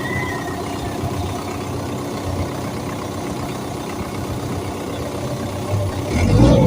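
Diesel engine of an XCMG XE135B excavator idling steadily, with a louder low rumble near the end.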